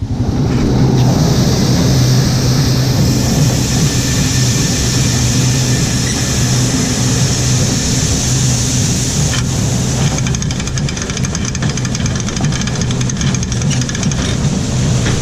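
Four-wheeler engine running steadily while riding, with wind rushing over the microphone. About ten seconds in, a fast rattle of ticks joins it.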